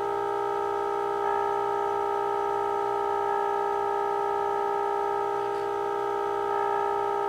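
Steady test tone of roughly 400 Hz with harmonics, playing through a 1948 Emerson 543 AA5 tube radio's speaker from a modulated signal generator during IF alignment. It swells slightly a few times as the last IF trimmer is peaked.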